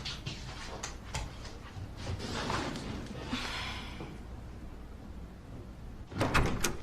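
A sliding door being worked: a few light clicks, a sliding rush a couple of seconds in, and a louder clatter of knocks near the end.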